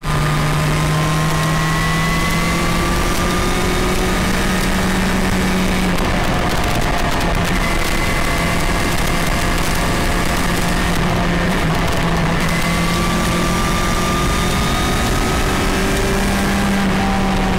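Motorcycle engine running at a steady road speed under heavy wind rush on the microphone, its note rising gently now and then.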